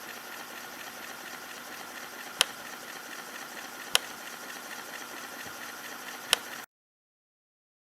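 Foley sound effects: a steady mechanical hum with three sharp clicks a second or two apart, irregularly spaced. The hum cuts off suddenly near the end.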